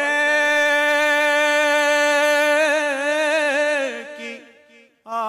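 A man singing one long unaccompanied note in a devotional Urdu qasida, held steady at first and then wavering with vocal ornaments before fading out about four and a half seconds in; a new sung phrase starts near the end.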